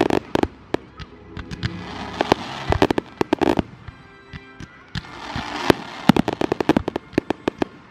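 Aerial fireworks display going off in rapid clusters of sharp bangs and cracks, with hissing and crackling swells between the volleys.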